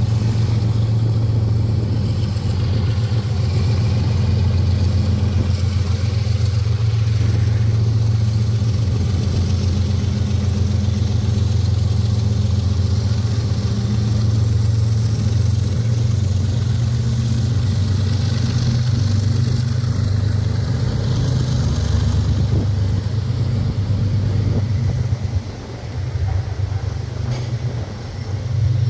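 Diesel-electric freight locomotives running under power as they pull past, a steady deep engine drone that drops off near the end as the units move away.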